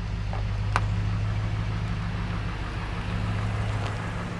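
Pickup truck engine running with a steady low hum as the truck pulls away, with a faint click about a second in.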